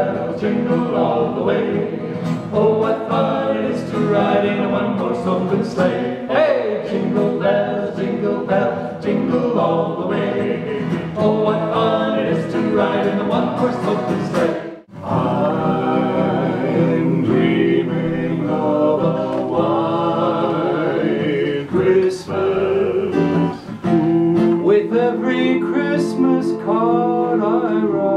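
Four men singing in close barbershop harmony with an acoustic guitar played along. The singing breaks off for a moment about halfway through, then carries on.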